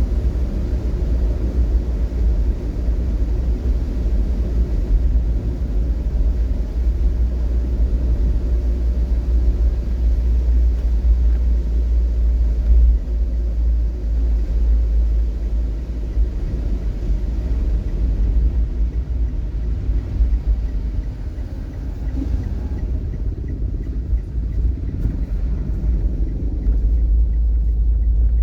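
Steady low rumble of a road vehicle travelling through traffic, with an even hiss on top that thins out about three-quarters of the way through.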